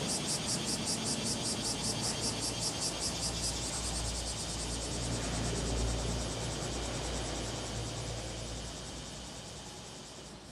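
Japanese level crossing warning bell ringing in a steady, rapid rhythm of about two to three strokes a second. A passing train's low rumble builds from about four seconds in, peaks near the middle, then fades away.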